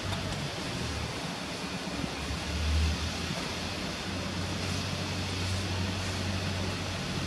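Steady outdoor background noise with a low rumble that swells briefly near the middle; no distinct event stands out.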